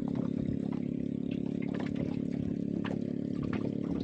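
Water trickling and dripping from a wet fishing longline pulled hand over hand over the side of a small boat, with small ticks of line and hooks, over a steady low motor hum.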